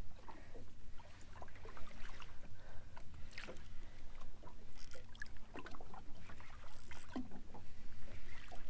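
Sea water lapping against a small fishing boat's hull, with a low steady rumble and scattered small knocks and splashes.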